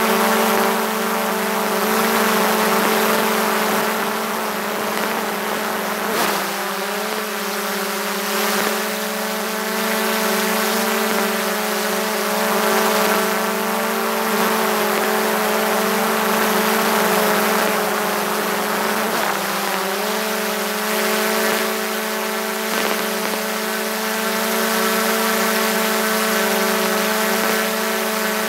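DJI Mavic 2 Pro's motors and propellers whining steadily in flight, heard close up from a camera mounted on the drone. The pitch of the whine shifts twice, about six seconds in and again about nineteen seconds in, as the motors change speed.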